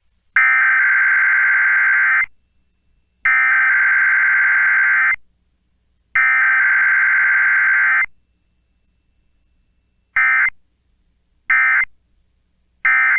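Emergency Alert System SAME data bursts, a buzzy warbling digital tone: three long header bursts about a second apart, then three short end-of-message bursts.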